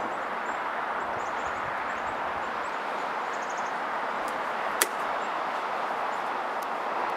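Steady outdoor background noise, with faint high-pitched chirps in the first half and a single sharp click near the end.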